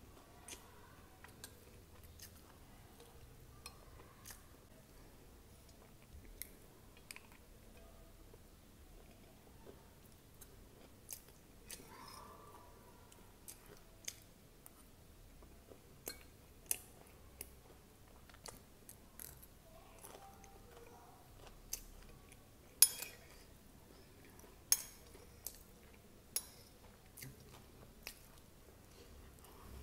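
Close-miked chewing of poha topped with crunchy sev and peanuts: soft chewing with many short, sharp crunches and clicks scattered throughout, a few louder ones a little past the middle.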